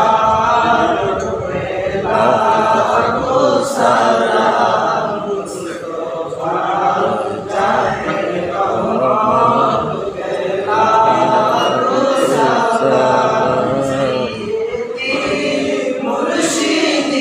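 A group of male voices singing a devotional chant together in unison, without instruments, in phrases of a few seconds.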